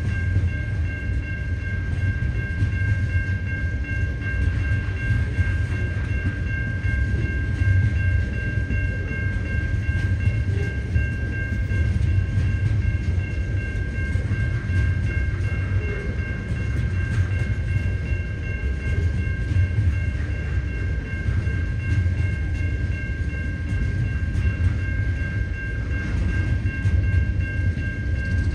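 Freight train's container flats and coal hopper wagons rolling past steadily with a low rumble. Over it the level crossing's electronic bell rings continuously as a fast, high-pitched ding.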